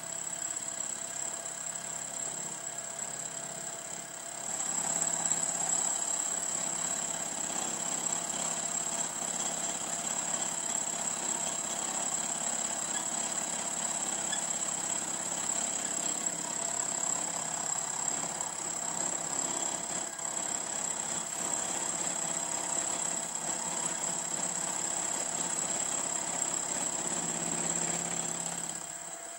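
Milling machine running with a steady high whine, its end mill taking light skimming cuts across the flange face of a 2-inch-scale Fowler showman's engine cylinder block casting. The cutting noise grows louder about four seconds in and drops away just before the end.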